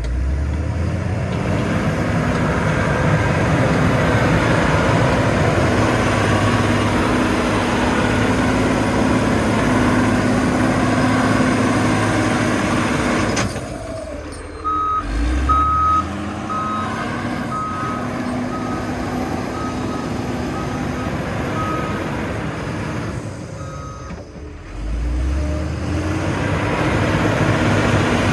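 Heavy road-construction vehicle's engine running loudly and steadily, easing off twice. In the middle stretch its reversing alarm beeps about once a second for roughly eight seconds as the machine backs up.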